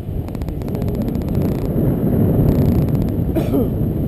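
Wind buffeting the microphone of a selfie-stick camera in paragliding flight, a loud steady rumble. A faint rapid ticking runs through the first second and a half.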